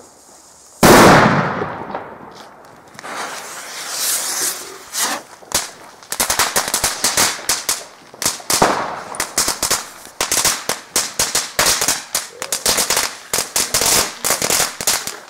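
Firecrackers going off: one loud bang about a second in, then scattered cracks. From about six seconds in comes a dense, rapid crackle of many small bangs, like a firecracker string firing.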